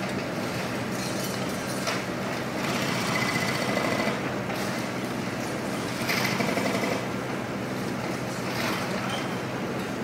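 Mini excavator's hydraulic breaker hammering a concrete floor in repeated bursts of rapid blows, over the steady running of the excavator's engine.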